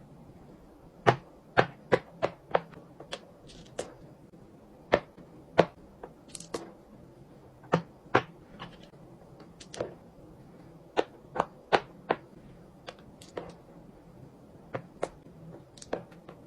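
Fidget toys being pressed and tapped by hand: a string of sharp, irregular clicks and pops, some coming in quick pairs.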